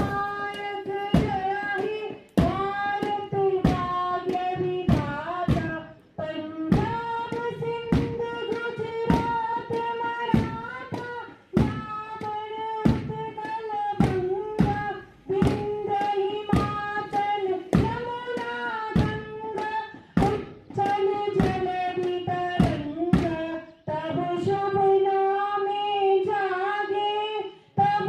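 A child's voice singing a slow, held melody, accompanied by a drum struck at a steady beat.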